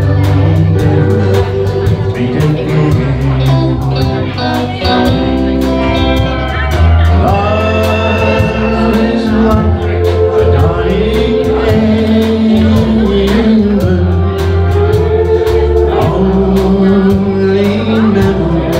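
Live country band with pedal steel guitar, electric guitar, keyboard and drums playing, a man singing lead over it.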